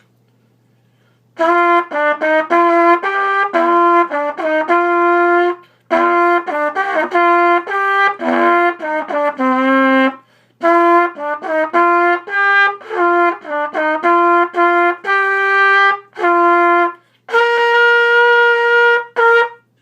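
Solo B-flat trumpet playing a melody after a short pause: phrases of quick separate notes with brief breaks for breath, ending on a long held note.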